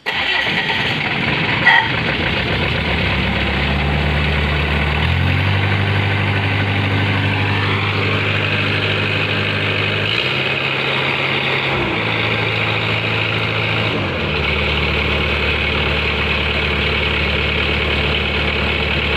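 Kagumi Mover crawler carrier's diesel engine starting up and running, its speed stepping up and down several times. This is the test run after a new disc was fitted in its gearbox.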